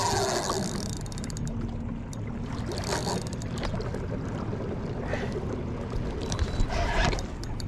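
Water sloshing against a kayak hull while a heavy fish is fought on a bent spinning rod, with a burst of rapid ticking from the spinning reel about a second in and a few scattered clicks later.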